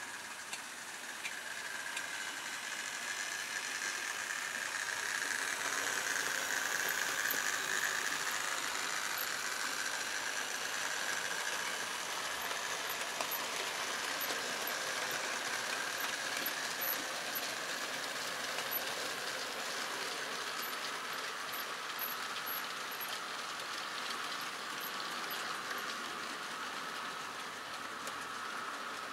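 OO gauge model locomotive running on the layout track: a steady whine from its motor and wheels on the rails, growing louder over the first several seconds and easing a little after the middle as it passes.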